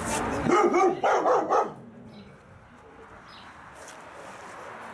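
A dog barking in a quick run of several barks over about a second and a half, then stopping.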